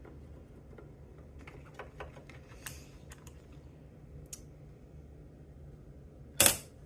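Light, scattered clicks and taps of a small cleaning tool working in a sewing machine's bobbin area, with one loud knock near the end.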